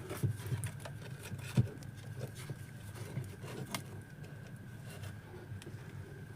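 Scattered small clicks and taps of a replacement transformer being set into a home theatre amplifier's chassis and screwed down, with one louder knock about one and a half seconds in.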